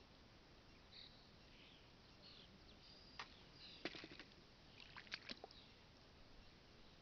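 Near silence outdoors, with faint bird chirps now and then and a few light clicks and taps about halfway through.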